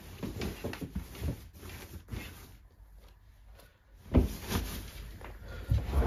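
Padded winter jacket rustling as it is pushed and folded onto a cabinet shelf, with soft knocks against the shelf; a sharper knock about four seconds in.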